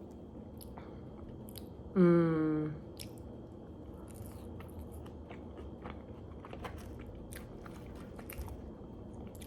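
Close-miked chewing and biting of a person eating a burger, with small wet clicks and crunches scattered throughout. About two seconds in comes a short voiced hum, falling slightly in pitch, which is the loudest sound.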